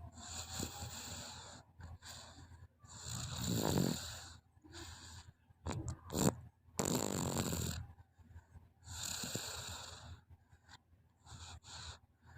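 Young child snoring in her sleep: noisy, rasping breaths that come and go every couple of seconds, several with a low rattling flutter.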